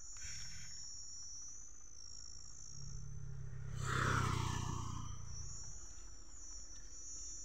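Insects chirring steadily in a high, wavering drone. About four seconds in, a low rumble swells up and fades away.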